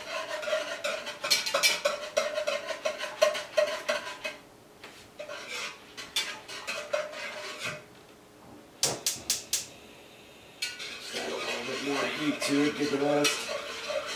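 A utensil stirring grated soap into hot water in a large aluminium stockpot, with quick clinks and scrapes against the pot's sides. The stirring goes quiet twice, about four seconds in and again near ten seconds. After the second pause, a steadier noise with a low hum comes in.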